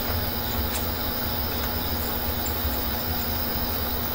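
Electric fan running: a steady hum and hiss with a low drone, and a couple of faint clicks.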